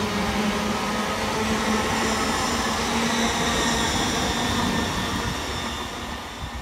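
LNER Azuma high-speed electric train passing at speed: a steady rush of wheels on rail with a low hum, fading as the last car goes by near the end.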